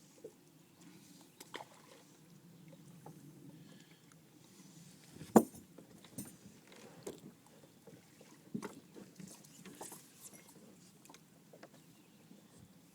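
Handling noises in a small fishing boat: scattered light knocks and clicks, with one sharp, loud knock about five seconds in. A low hum runs underneath and stops about four seconds in.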